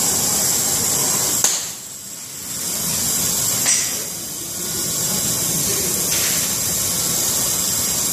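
Gas brazing torch flame hissing steadily while it heats a copper pipe fitting red-hot for silver brazing. The hiss drops away briefly about one and a half seconds in, and short sharp clicks come then and again near four seconds in.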